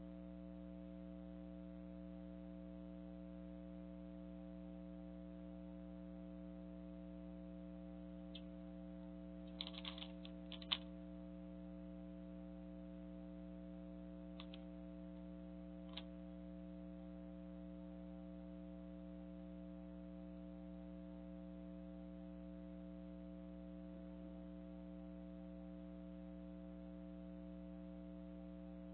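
Steady electrical hum of several even tones, with a quick cluster of light clicks and taps about ten seconds in and a few single faint clicks a few seconds later.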